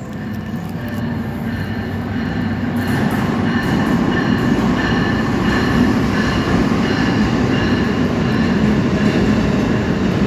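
Amtrak passenger train, an electric locomotive and stainless-steel cars, rolling into the station on the track close by. Its rumble builds over the first few seconds, then holds loud and steady, with a steady high whine over it.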